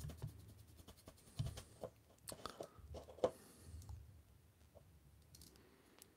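Faint, scattered clicks and taps of a paintbrush dabbing and working skin-tone acrylic paint on the bottom of an upturned paper cup, with a few sharper taps between about one and a half and three and a half seconds in. Near the end, a plastic action figure is picked up and handled.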